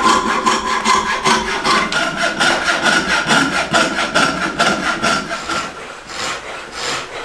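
Hand saw cutting through a wooden saw-handle blank in quick, even strokes, with a steady high note under the strokes. About six seconds in the strokes become slower and more widely spaced.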